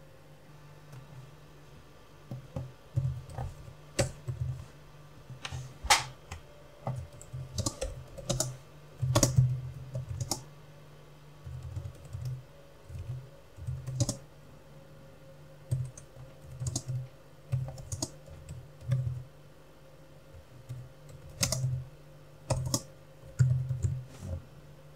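Typing on a computer keyboard: uneven bursts of keystrokes with short pauses between them, starting about two seconds in.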